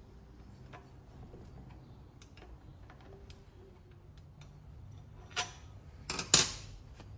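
Small, irregular metallic clicks of a wrench backing out the long through-bolts of a classic VW generator, then a few louder metal clanks a little after five and six seconds in.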